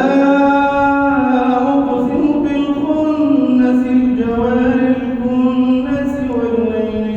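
A man reciting the Quran in melodic tajweed chant, holding long notes that step and glide slowly in pitch.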